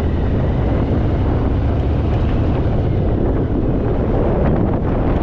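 Steady wind buffeting the microphone while riding a Harley-Davidson Fat Boy, with the motorcycle's air-cooled V-twin running underneath.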